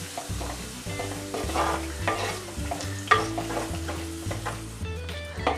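Wooden spatula stirring and scraping a wet chilli-and-spice masala paste through frying shallots in an earthenware clay pot, the paste sizzling in the hot coconut oil. The strokes come one after another, each a short scrape against the clay.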